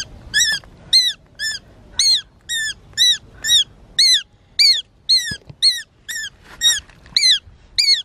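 Shikra calling over its quail kill: a short, high, down-slurred call repeated steadily about three times a second.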